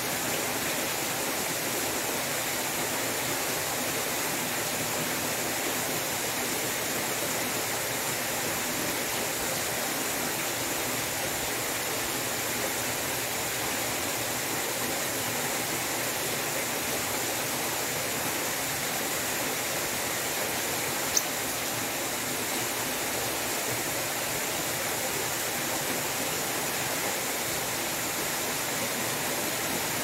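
Water spilling steadily from a stone-clad wall water feature into a plunge pool: a continuous, even splashing rush. A single sharp click sounds about two-thirds of the way through.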